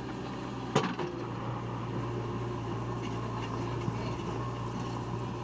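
Heavy diesel engine running steadily with a low hum, and one sharp knock a little under a second in.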